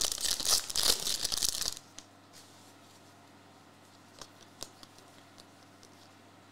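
Plastic wrapper of a Prizm football trading-card pack crinkling as it is torn open, for about the first two seconds. After that it is quiet, with a low steady hum and a few faint clicks of cards being handled.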